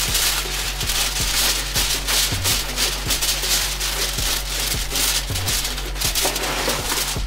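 Background music with a steady, repeating beat.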